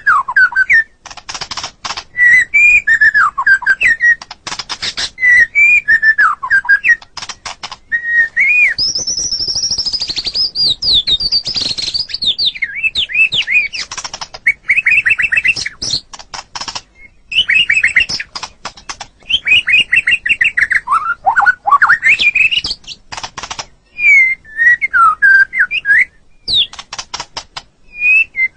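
White-rumped shama (murai batu) singing: varied, loud whistled phrases with gliding notes and quick runs of repeated notes, broken up by many sharp clicks and short pauses.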